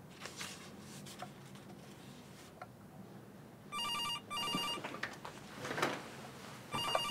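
A few faint rustles, then a landline telephone starts ringing about halfway through, in pairs of short rings: one pair, a pause, and a second pair beginning near the end.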